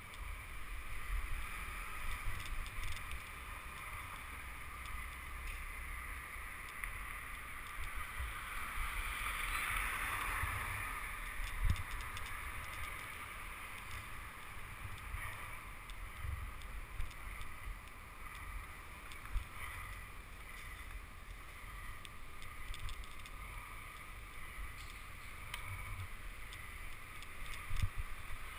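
Steady wind rush and road rumble on a camera riding along on a bicycle over asphalt. The rush swells about ten seconds in, with a sharp knock near the middle and another near the end.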